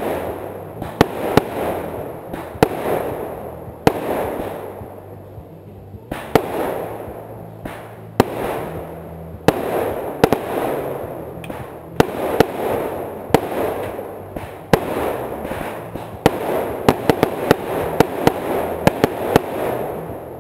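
Consumer aerial fireworks going off: a string of sharp bangs, about one or two a second and coming faster near the end, with a hissing rush between them.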